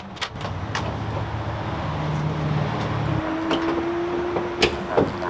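Several sharp clicks and knocks as hands work on an aluminium diamond-plate truck camper shell and its rear door, over a low steady hum that stops about three seconds in.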